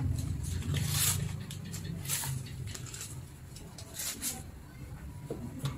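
Rummaging through items on a kitchen shelf: a few short rustles and light knocks of things being handled, over a low rumble that fades after a couple of seconds.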